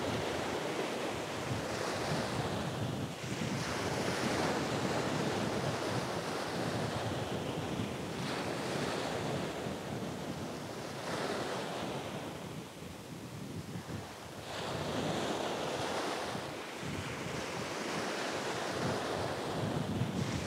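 Surf breaking on a sandy beach, the rush of water swelling and fading with each wave every few seconds, with wind buffeting the microphone.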